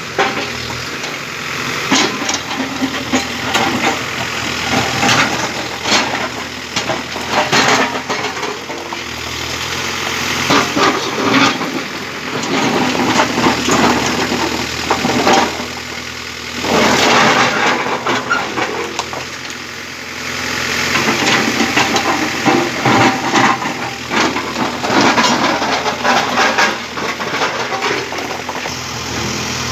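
Case 851EX backhoe loader's diesel engine running while it works, with many short knocks and clattering sounds throughout.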